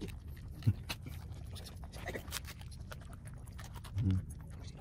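A dog chewing and crunching on food, with many small sharp clicks and crunches. A short low grunt comes about four seconds in.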